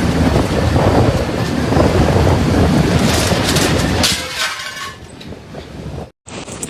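Typhoon storm noise: heavy wind and rain in a loud, dense rumble that eases after about four seconds. It cuts out briefly near the end, then the storm noise resumes.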